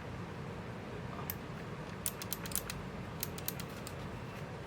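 Faint, scattered clicks in small quick groups from the clicky low-profile blue switches of a Keychron K7 keyboard being pressed.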